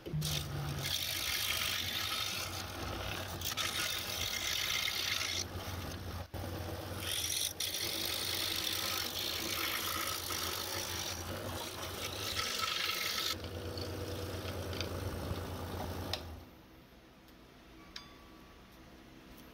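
DeWalt scroll saw blade cutting through a wooden sign letter: a steady, loud rasping buzz of the blade's rapid up-and-down strokes through the wood. About sixteen seconds in the sound drops off sharply to a much quieter level.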